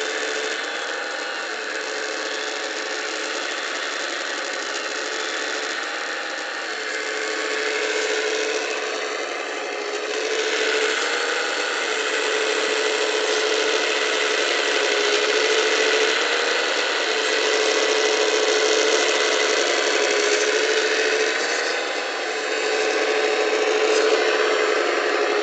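Hydraulic pump of a Wedico 1:14.5 scale RC CAT 345D excavator whining steadily as the model digs. Its tone dips briefly every couple of seconds as the controls change the load on the hydraulics, and it grows louder about ten seconds in.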